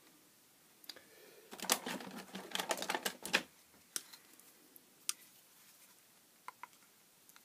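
Small hard-plastic clicks and scrapes from handling the impulse sealer's timer control module while working at its push-fit knob: a quick flurry of clicks about two seconds in, then a few single clicks.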